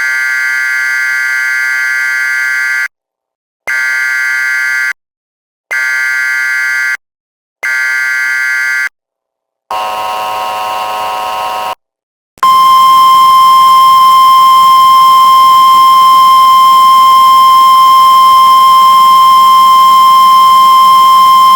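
Mock Emergency Alert System tones. First come four buzzy, screeching data bursts of the header kind, separated by short gaps, then one lower-pitched buzzy burst. After a moment's silence a single loud, steady alert tone starts and holds without a break.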